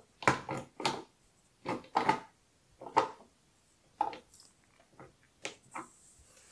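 Glass nail polish bottles knocking and clinking against a clear acrylic display rack as they are lifted out and set back down, about ten light knocks at irregular intervals, some in quick pairs.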